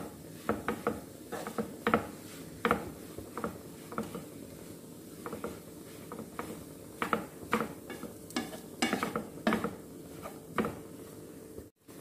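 Wooden spatula scraping and stirring a thick fish and mashed-potato mixture around a nonstick frying pan in irregular strokes, sparser midway, with a faint sizzle under it. The sound cuts out briefly near the end.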